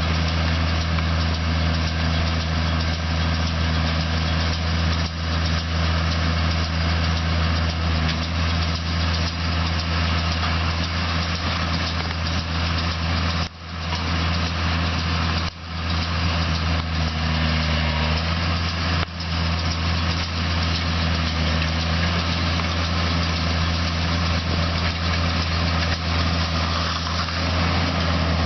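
Case IH Maxxum 140 tractor's diesel engine running steadily with a deep hum, the sound dropping out briefly three times midway.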